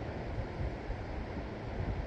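Steady wash of sea waves, with wind buffeting the microphone in uneven low rumbles.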